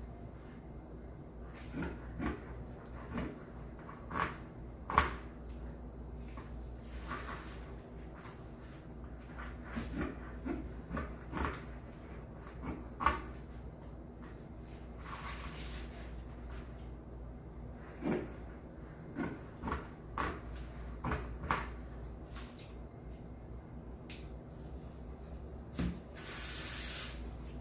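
Deco mesh being cut with scissors and handled on a cutting mat: scattered snips and clicks, with a few longer rustles.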